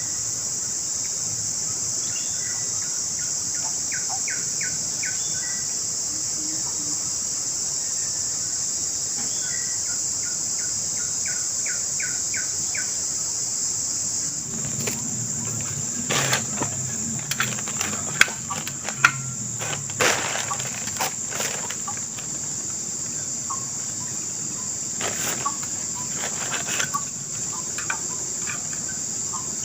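A steady, high-pitched insect chorus from the forest, with two short runs of quick repeated call notes in the first half. From about halfway, scattered sharp knocks and handling noises join in close by.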